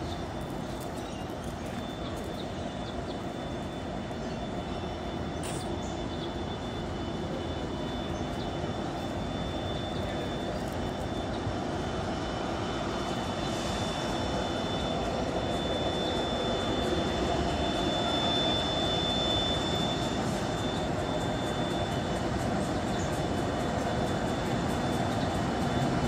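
A Pacific National diesel freight locomotive approaching, its engine drone growing steadily louder, with a thin high steady whine strongest around the middle.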